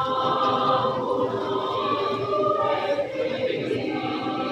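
Women's choir singing in several parts, holding long sustained chords.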